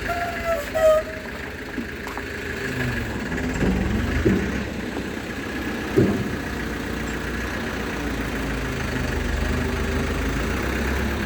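Heavy diesel engine running steadily, with a couple of short knocks about four and six seconds in.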